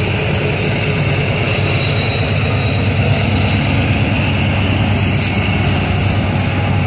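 Diesel locomotive engine running under power: a loud, steady low drone with no breaks.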